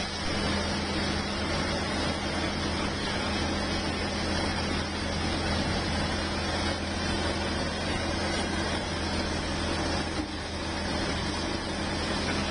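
A heavy engine running steadily with a low, unchanging hum under a dense noisy rumble.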